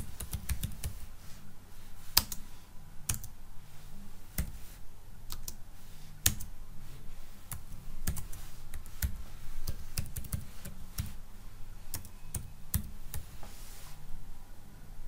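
Typing on a computer keyboard: a run of irregular key clicks that stops about a second before the end, over a faint low hum.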